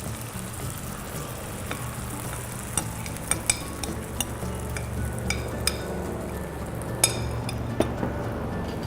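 Batter-coated mushrooms sizzling as they fry in hot oil, with a utensil clicking against the pan several times from about three seconds in, the loudest click near the seven-second mark.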